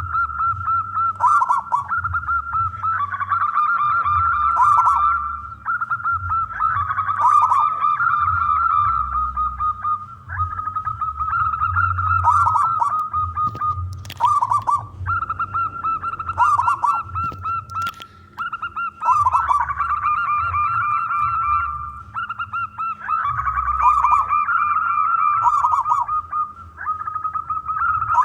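Zebra dove (perkutut) cooing over and over, each phrase a run of rapid rolling coos with brief pauses between them.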